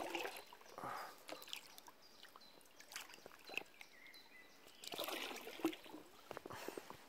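Faint trickling and lapping of shallow river water around an inflatable kayak drifting downstream, with scattered small clicks and taps.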